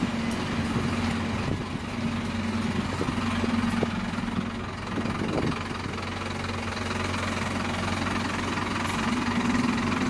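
Diesel engine of a Scania-chassised Optare Olympus double-decker bus idling steadily, with a low even hum.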